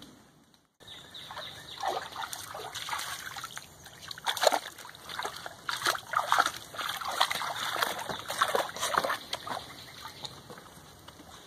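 A dog splashing and lapping water at the edge of a shallow creek, in irregular bursts.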